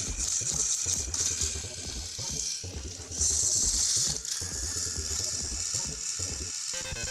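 Battery-powered plastic toy locomotives whirring under load, with gears grinding and plastic wheels rattling and slipping on plastic track as they push against a row of other toy engines.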